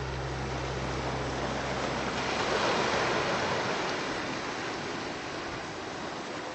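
Sea surf: an even rush of water noise that swells to a peak about three seconds in, like a wave washing in over rocks, then slowly ebbs.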